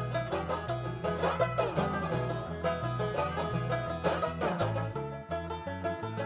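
Bluegrass-style music with a fast-picked banjo over a bass line that alternates between two notes about twice a second.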